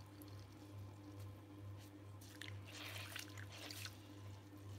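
Faint wet squishing and dripping of a water-soaked sponge and clay slurry under hands working on a potter's wheel, busiest in the middle. Under it runs the low, steady hum of the electric wheel turning slowly, with a slight regular pulse.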